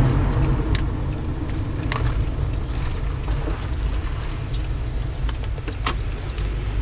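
Car cabin noise while driving: a steady low rumble of engine and tyres on the road, with a few short sharp clicks.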